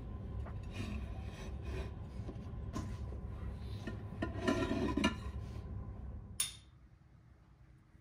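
Stuffed bell peppers and ceramic plates being handled on a kitchen counter: soft rubbing and light knocks, a louder shuffle a little past halfway, and a sharp clink about six and a half seconds in, after which it goes almost quiet.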